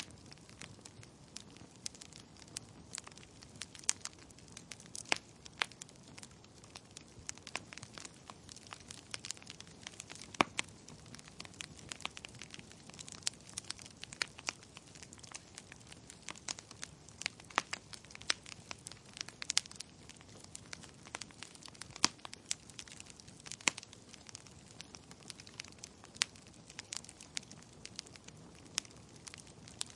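Wood fire burning in a fireplace: logs crackling and popping at irregular intervals, several times a second, over a soft steady hiss of flame.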